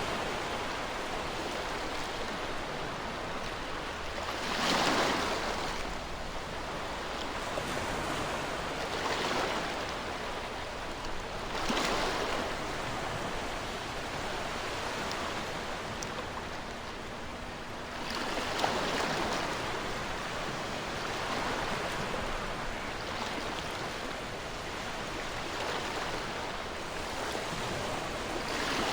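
Ocean waves breaking and washing on a shore, a steady rush of surf that swells with a breaking wave about every three to seven seconds.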